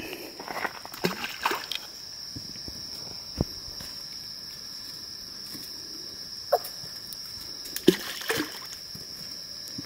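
Steady high-pitched insect chorus, with light water sloshes and scattered small clicks and knocks from handling a yabby trap at the water's edge; one sharper click about three and a half seconds in.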